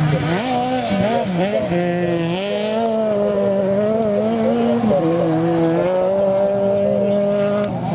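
Rally car engine running hard at high revs on a gravel stage. The revs dip and recover in the first couple of seconds, then hold steady, with a step down about five seconds in, as at a gear change.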